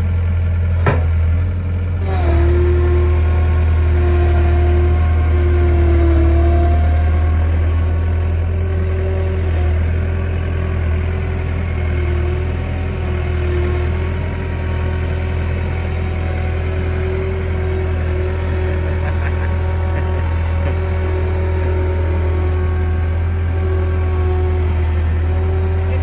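John Deere 317 skid steer's diesel engine running steadily as the machine drives across sand: a low engine drone with a steady higher whine over it.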